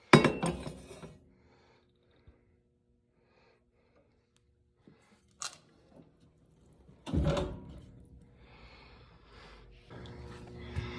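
Steel parts clanking: two sharp metal knocks about seven seconds apart, with a small click between them.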